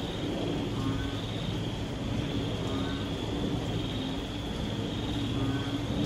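Moderate rain falling steadily, with frogs calling: a low croak repeated about once a second, short higher calls every couple of seconds, and a high call that swells and fades.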